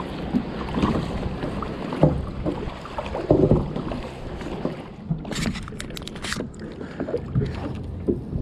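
Plastic sit-on-top kayak being paddled: uneven splashes and knocks of the paddle strokes, with wind on the microphone. From about five seconds in, a run of sharp clicks and taps close up, as a spinning reel is handled.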